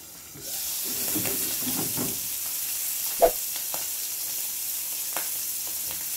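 Pieces of meat sizzling steadily in a frying pan on a gas stove, with a sharp clink about three seconds in and a few lighter clicks.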